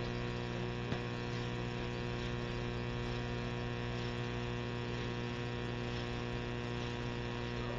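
Steady electrical mains hum, a low buzz with several fixed pitches above it, with a faint tick about a second in.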